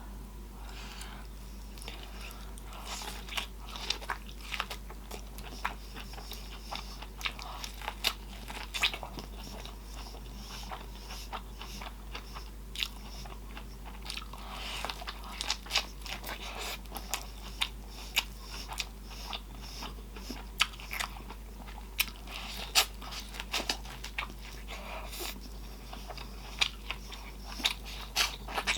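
A person eating close to the microphone: wet chewing and lip-smacking with many sharp, irregular mouth clicks.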